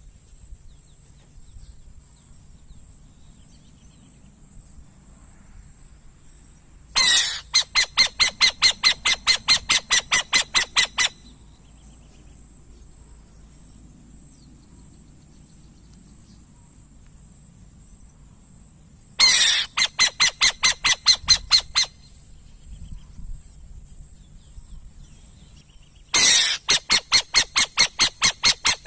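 Owl calling in three bouts of rapid, evenly repeated harsh notes, about five a second, each bout lasting two to four seconds with quiet gaps between.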